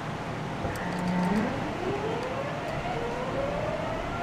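Nagoya Municipal Subway 3050 series train heard from inside the car as it accelerates: the VVVF inverter and traction motors hold a low hum, then about a second and a half in begin a whine that rises steadily in pitch.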